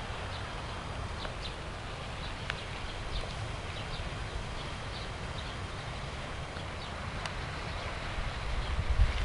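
Low wind rumble on the microphone, with faint, scattered short high bird chirps; the rumble grows louder near the end.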